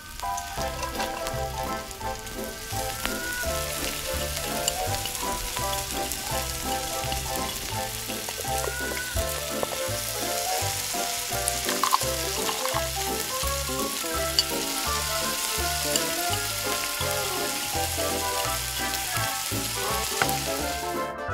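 Oil sizzling in a tiny metal wok as dried anchovies and chopped chillies fry, the sizzle growing stronger in the second half. Background music with a steady bass beat plays under it.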